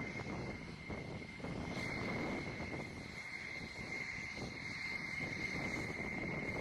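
Jet aircraft engine running with a steady high whine over a low rumble.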